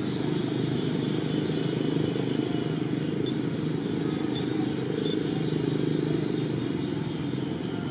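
Steady low engine drone, like motor vehicles running nearby.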